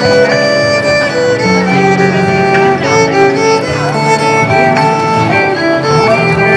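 Violin playing a slow melody of held notes, with lower accompanying notes underneath.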